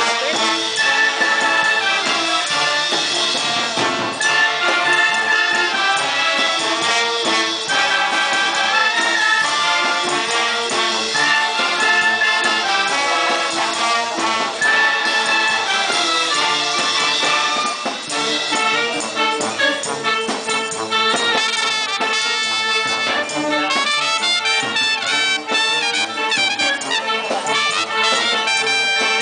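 Brass band playing a tune: trumpets and trombones over sousaphones, with a bass drum, steady and loud.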